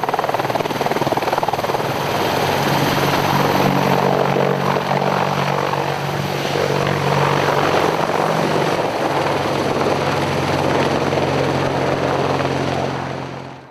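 Westland Apache AH1 attack helicopter hovering low and then pulling away: steady heavy rotor noise over the high whine of its twin RTM322 turboshaft engines. The sound drops away sharply near the end.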